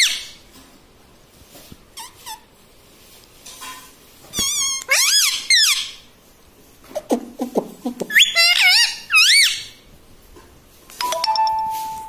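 Indian ringneck parakeet calling in several bursts of high, wavering squeaky notes, about four seconds in and again about eight seconds in, then a short steady whistled note near the end.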